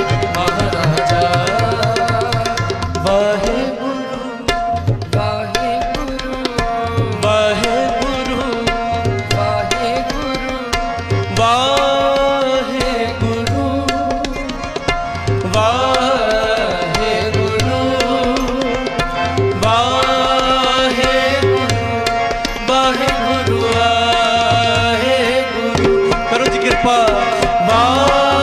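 Tabla keeps a steady rhythm, with a deep stroke about every second and a half, under a gliding melodic line in devotional music.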